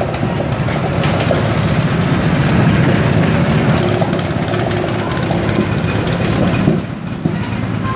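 Small rental go-kart engines running at low speed and idling as the karts creep along in a line, a steady mechanical chug with low harmonics. The sound drops briefly about seven seconds in, then picks up again.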